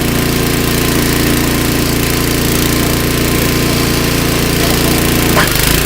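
Snow blower's small gasoline engine running steadily at full throttle, with a brief change in its note near the end.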